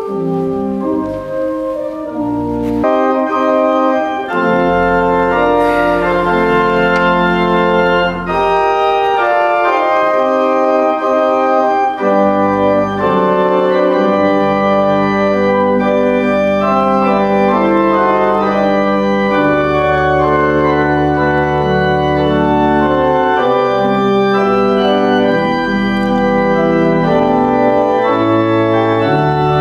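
Organ playing slow processional music: sustained chords over low held bass notes, the harmony shifting every second or so.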